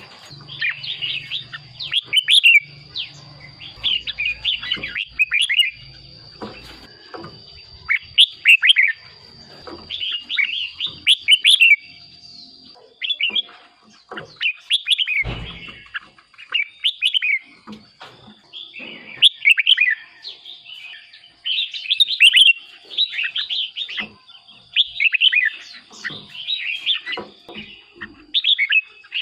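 Red-whiskered bulbul singing: short, bubbly whistled phrases repeated every second or two, with a faint steady high tone behind them.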